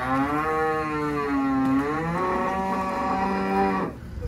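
A head of cattle trapped in deep mud mooing in one long call of about four seconds, its pitch dipping and shifting partway through before it stops near the end.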